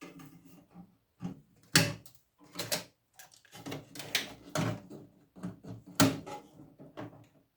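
Irregular metallic clanks and clicks from parts of a microwave being handled and pulled apart, with two louder knocks, one about two seconds in and one near six seconds.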